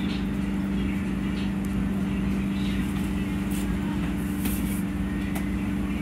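Subway car running, heard from inside: a steady rumble of the moving train with a constant low hum, and a few faint light rattles about midway.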